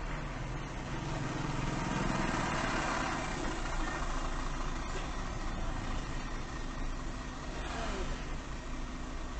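Steady hum of car engines idling in stopped traffic, with other vehicles passing close by.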